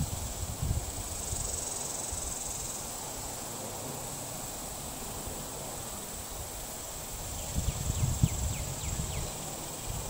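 Steady high-pitched drone of insects, with a low irregular rumble of wind on the microphone that grows stronger near the end.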